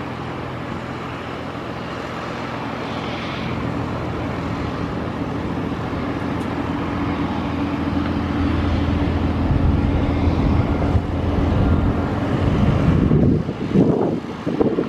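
Steady engine drone with low humming tones, slowly growing louder. Near the end, uneven gusts of wind buffet the microphone.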